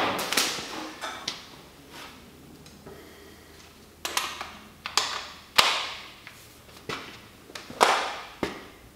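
Handling noise from a heavy power cable and its plug being picked up and plugged in: a string of separate knocks, clicks and rustles, with quiet gaps between.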